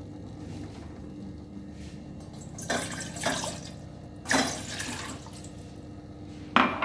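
Water poured from a glass cup into a steel saucepan in a few short splashes, over a steady low hum.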